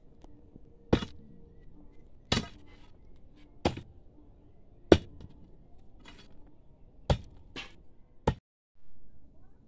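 A hand digging tool striking rock and breaking it up, seven sharp blows spaced roughly one to two seconds apart, two of them close together near the end.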